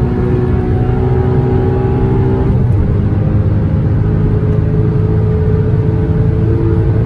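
Porsche Cayman S 981's 3.4-litre flat-six engine pulling hard, its note climbing steadily. About two and a half seconds in the pitch drops sharply, then it steadies and climbs slowly again.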